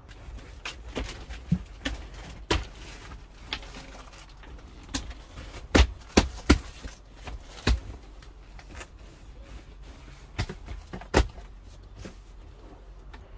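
A run of sharp knocks and clunks, scattered through the stretch, loudest in a cluster about six seconds in and again near eleven seconds, over a low steady rumble.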